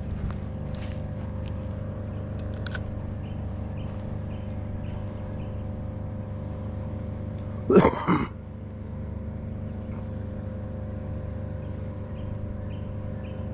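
A steady low mechanical hum with several fixed pitches throughout, and one brief loud burst of noise about eight seconds in.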